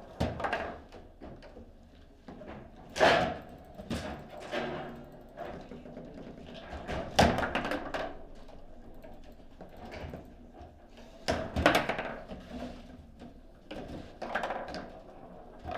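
Foosball table in play: irregular sharp knocks and clacks as the ball is struck by the plastic players and bounces around the table, the loudest about three seconds in, about seven seconds in, and twice close together around eleven to twelve seconds.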